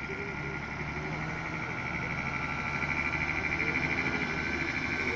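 A small passenger bus approaching along the road, its engine hum growing louder, over a high, fast-pulsing chirring tone.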